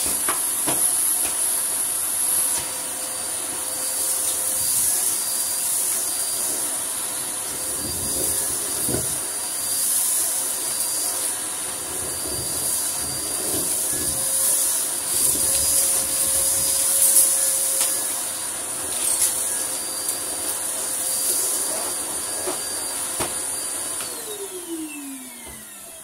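Numatic James cylinder vacuum cleaner running steadily with a high whine, its floor tool sucking a pile of dust, fluff and grit off carpet, with scattered clicks as debris goes up the hose. About two seconds before the end it is switched off, and the motor's whine falls in pitch as it winds down.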